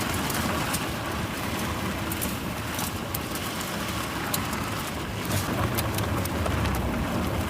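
Car driving at a steady normal speed on gravel: tyres crunching and stones crackling and pinging against the car over a low road rumble, with the rumble swelling a little past the middle.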